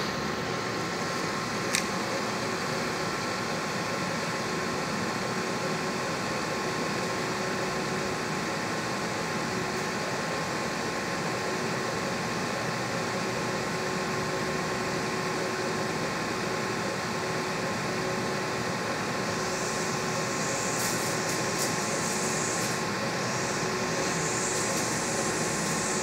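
Biotage Initiator EXP microwave synthesizer running with its magnetron on while heating a vial: a steady mechanical hum with a few steady tones. There is a single sharp click about two seconds in, and intermittent high hiss from about twenty seconds on.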